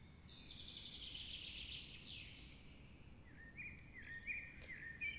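Birds singing over faint outdoor ambience: a fast high trill lasting about two seconds, then a run of short chirping notes in the second half.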